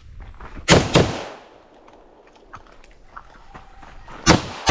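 Two quick gunshots from an M4-style rifle under a second in, then faint handling clicks as the shooter switches to a pistol, then two pistol shots near the end.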